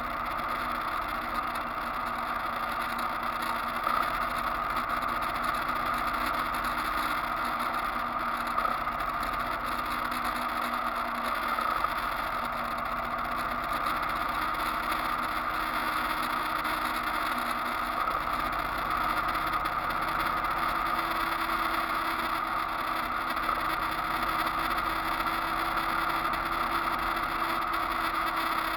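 Motorcycle cruising at a steady speed: the engine runs evenly under constant wind and road noise.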